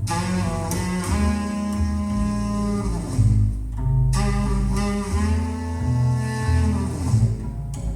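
Instrumental music played through KEF LS50 Meta bookshelf speakers and picked up by a phone: a deep bass line under sustained chords, with a new phrase starting about four seconds in.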